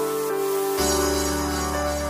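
Soft background music of sustained keyboard chords. About a second in the chord changes and a deep bass note comes in.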